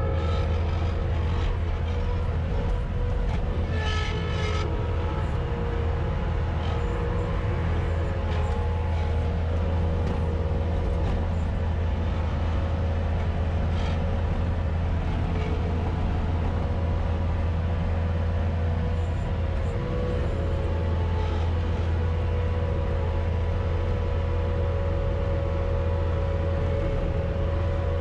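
Bobcat S250 skid-steer loader's diesel engine running steadily, heard from inside the cab as the machine pushes snow, with a few short knocks and rattles.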